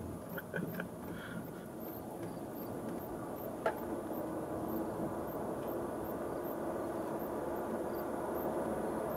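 Car driving, heard from inside the cabin: an even rush of tyre and road noise with a low steady hum, growing gradually louder as the car picks up speed, and a sharp tick a few seconds in.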